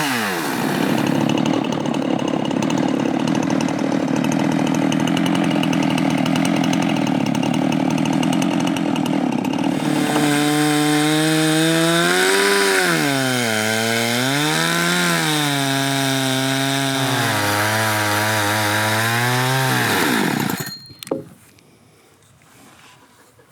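Chainsaw in a homemade Alaskan-style chainsaw mill ripping a log lengthwise for about ten seconds. It then runs with its pitch rising and falling twice, winds down and stops about 20 seconds in, followed by a single sharp knock.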